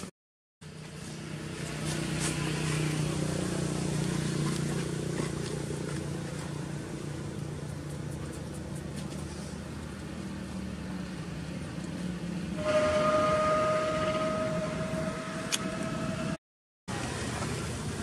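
A motor runs in the background with a low steady drone. About two-thirds of the way in, a strong steady hum comes in, rising slightly in pitch for a few seconds, then cuts off.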